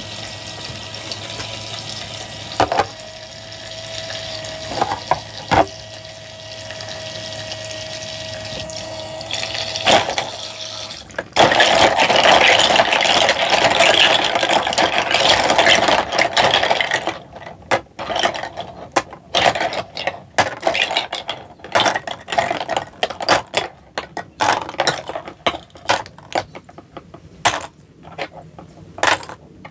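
Water running from a toy kitchen sink's faucet over plastic toy food pieces, with a steady hum underneath. About eleven seconds in, the splashing gets louder for several seconds. After that comes a run of light plastic clicks and clacks as the toy fruit and vegetable slices are picked from the sink and set down on a plastic tray.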